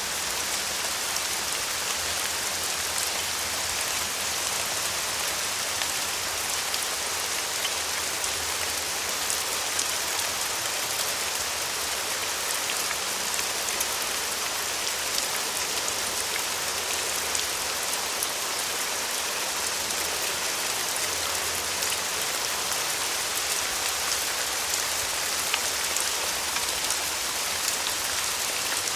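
Steady rain falling on a surface: a dense, even hiss with scattered individual drop ticks.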